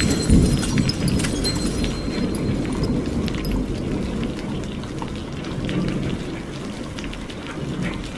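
Rain-and-thunder sound effect: a low rumble of thunder with scattered rain patter, fading away slowly.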